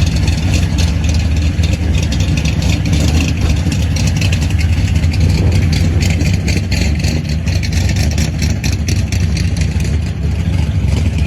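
Loud gasser-style hot-rod car engine running steadily with a deep low rumble, its level staying even throughout.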